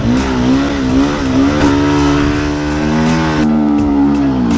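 Enduro dirt bike engine running at middling revs, the throttle eased on and off so the note wavers up and down, then dropping in pitch near the end.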